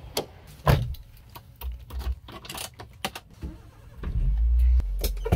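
Car door latch clicking open with a thump, then keys rattling and clicks at the ignition. About four seconds in the car's engine starts with a low rumble and settles into a steady idle.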